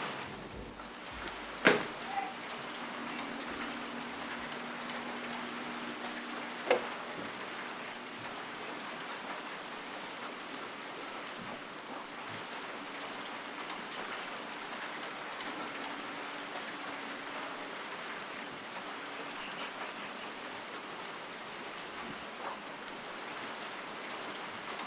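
Steady rain falling on surfaces, an even hiss, with two sharp taps or drips standing out, once near the start and again about five seconds later.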